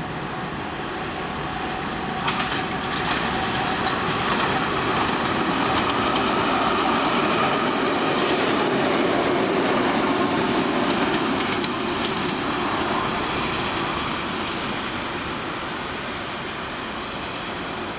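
A 2TE116 twin-section diesel locomotive passing by: the engines' drone and the wheels clattering over the rail joints grow louder as it comes past, then fade as it moves away.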